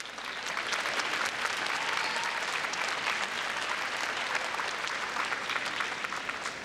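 Large arena audience applauding, swelling over the first second, holding steady, then easing off near the end.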